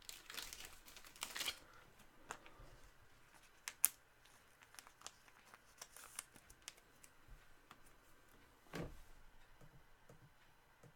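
Faint crinkling and rustling of plastic and paper from trading cards being handled, with scattered light clicks. One sharper click comes about four seconds in, and a short rustle near the end.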